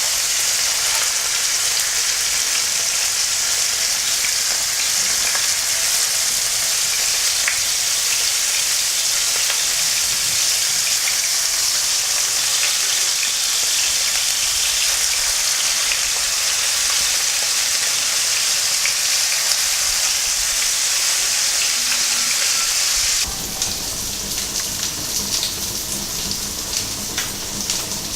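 Marinated sardines frying in hot coconut oil in a pan: a steady sizzling hiss. About 23 seconds in it turns a little quieter and more crackly, with scattered pops.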